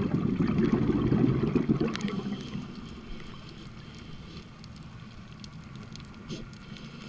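Underwater bubbling and gurgling, as of a scuba diver's exhaled bubbles heard through an underwater camera housing. It is loud for the first two seconds or so, then fades to a low, even wash with faint scattered clicks.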